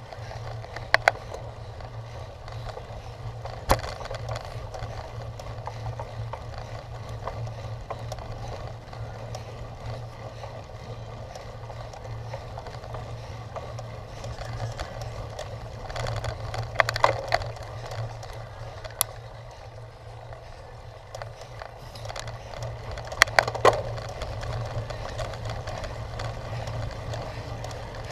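Cyclocross bike rolling over rough ground: steady tyre and drivetrain rumble with a scattering of sharp clicks and rattling knocks. The knocks come singly early on and bunch up twice later.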